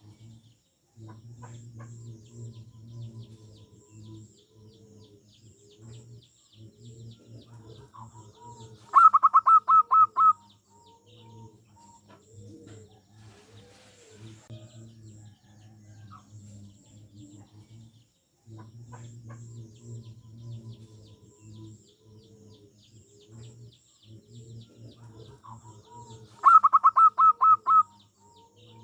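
Zebra doves (perkutut) cooing: a steady run of low coos, broken twice by a loud, rapid series of about seven higher notes, with small birds chirping faintly in the background. The sequence repeats about every 17 seconds.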